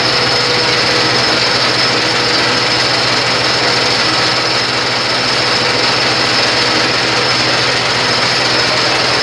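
Mini stone crusher running steadily: a loud, continuous mechanical clatter with a fast, even rhythm over a steady engine hum.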